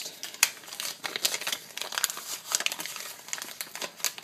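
Crinkling and rustling handling noise close to the microphone: a dense run of irregular crackles and rubs.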